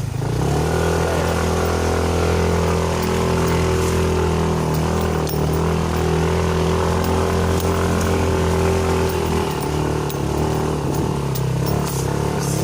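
Motorcycle engine running continuously under load, its note holding fairly steady with small dips and rises in revs.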